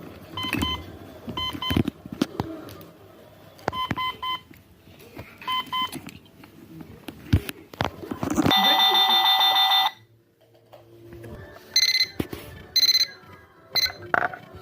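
Electronic alarm clocks going off: pairs of short beeps repeating every couple of seconds, then a loud, harsh buzzer for about a second and a half, then a few higher-pitched beeps near the end, with scattered clicks and knocks in between.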